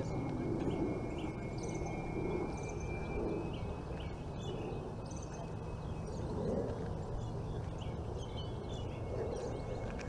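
Outdoor pond-side ambience: a steady low rumble with scattered faint bird chirps and a thin steady high tone through the first few seconds.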